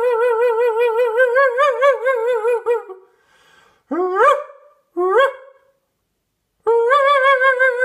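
A dog howling: a long wavering howl of about three seconds, two short rising yelps a little later, then another long howl starting near the end that slowly sinks in pitch.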